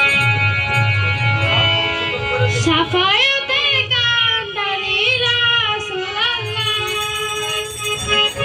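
A woman sings a devotional song through a microphone and PA, coming in about three seconds in with a wavering, ornamented line and long held notes. Behind her run held instrumental notes and a steady low beat.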